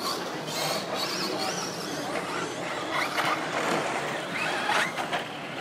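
Electric RC stadium trucks' motors whining, rising and falling in pitch several times as the cars speed up and slow down around the track.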